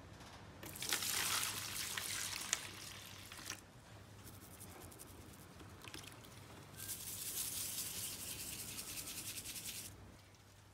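Two bouts of rapid scrubbing strokes, each about three seconds long, with a pause between them.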